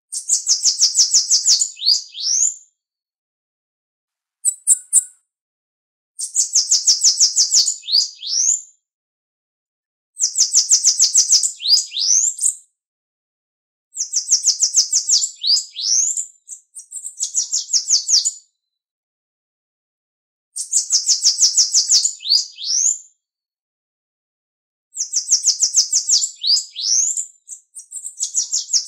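Bananaquit (Coereba flaveola) singing: six songs a few seconds apart, each a fast, high, buzzy trill of clicking notes that ends in a few quick rising slurred notes. A short call comes in the first pause, about four seconds in.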